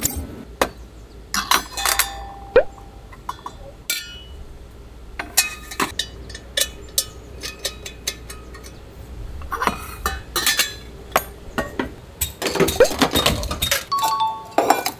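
Stainless steel cups and camp cookware clinking and knocking as they are handled and set down on a metal camp table, with one ringing clink near the end. A low steady hum runs underneath and stops shortly before the end.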